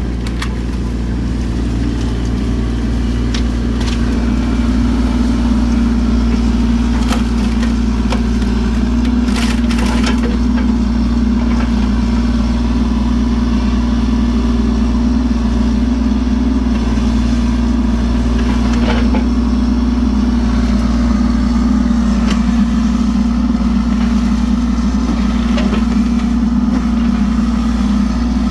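Mini excavator's diesel engine running steadily under load, picking up a little in the first few seconds and then holding, with occasional sharp knocks and cracks over it.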